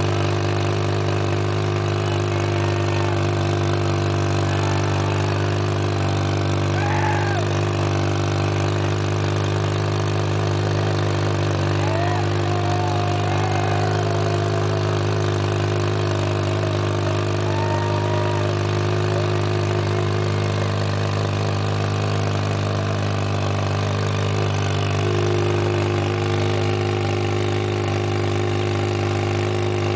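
Chopper motorcycle engine held at a steady, unchanging speed during a burnout, the rear tyre spinning in place and throwing thick smoke. It runs loud and even, with no rises or drops in revs.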